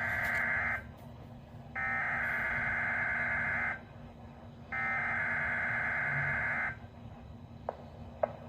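Weather radio SAME alert header: a harsh, buzzing digital data signal sent three times, each about two seconds long with a second's gap between them, the first already under way at the start. It is the coded header that opens an Environment Canada weather alert. Two faint clicks come near the end.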